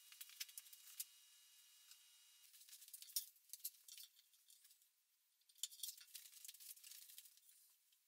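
Faint clicking and rattling of a steel tape measure, its blade drawn out along a board and then running back into its case. A few light clicks come near the start.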